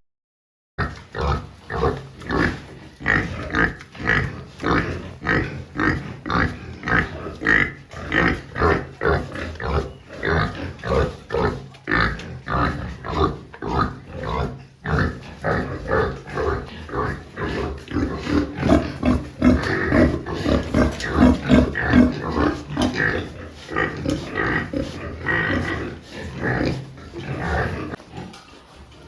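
Pigs grunting in a steady run of short grunts, about two a second, fading somewhat near the end.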